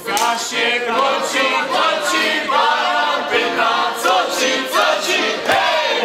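A group of voices singing a Polish wedding folk song (przyśpiewka) together, accompanied by accordion and violins.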